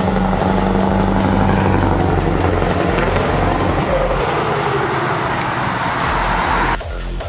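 Heavy truck's diesel engine running loud through an open exhaust pipe as the truck drives off, its pitch rising and falling in the middle. Faint music underneath. The engine sound cuts off shortly before the end.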